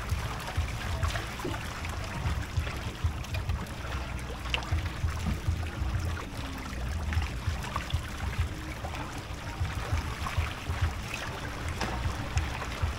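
Water lapping and trickling against a kayak's hull, with scattered small splashes and clicks over a low, uneven rumble.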